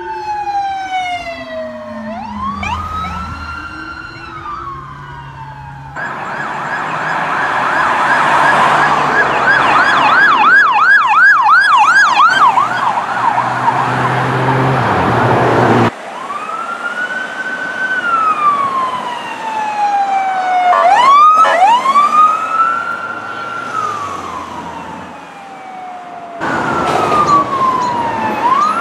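Police car electronic sirens over several short clips: a slow rising-and-falling wail, then a rapid yelp of about three sweeps a second, then the wail again with a brief quick yelp between sweeps. The sound changes abruptly at each cut.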